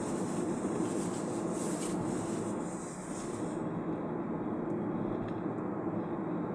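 Steady road and engine noise of a car being driven, with a higher hiss over the first half that stops about three and a half seconds in.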